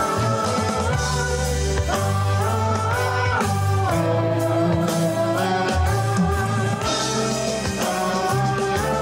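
Live rock band music: a man sings a melody in long held notes over electric bass and guitar.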